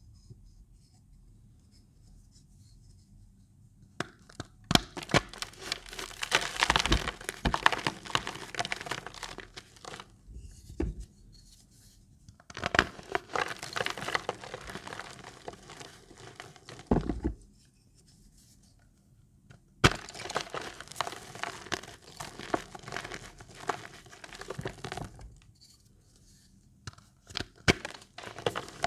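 Reformed Magnesia gym chalk blocks crushed between the palms, crumbling and crackling into powder in several long bouts with a few sharp snaps. It starts about four seconds in.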